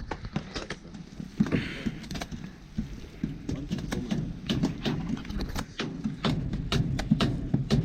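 Rapid, irregular sharp knocks and clicks, growing denser after about four seconds, over faint voices.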